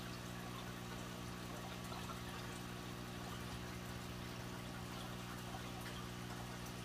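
Aquarium filter running: water trickling steadily over a constant low hum.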